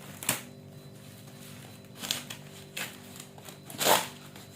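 Parcel packaging being torn open by hand: four short rips or crackles, the loudest just before the end.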